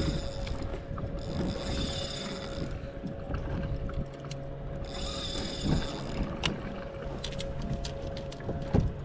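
Ratcheting and clicking of fishing gear being worked, most likely the downrigger or reel. There are two stretches of high buzzing, a few sharp clicks later on, and a faint steady hum underneath.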